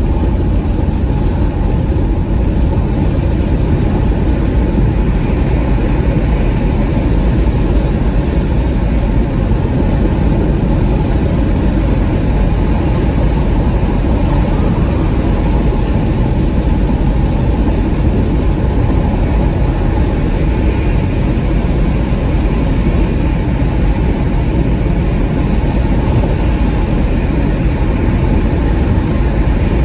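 Steady low road rumble inside a 2021 Porsche Macan S cruising at highway speed: tyre noise on the pavement with wind and engine hum, unchanging throughout.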